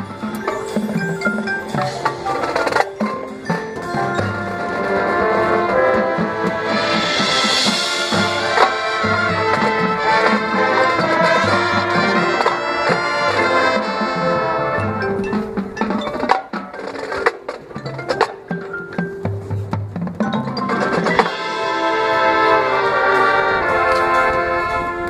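Marching band playing its field show: sustained brass chords over front-ensemble mallet percussion and drums. The music thins to a sparser, drum-led passage about two-thirds of the way in, then swells back to full brass near the end.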